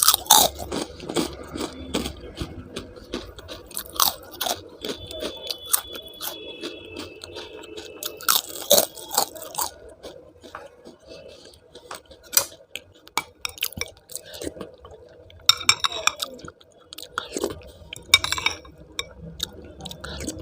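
A person chewing and crunching food close to the microphone, with many short sharp clicks and wet mouth sounds scattered unevenly throughout.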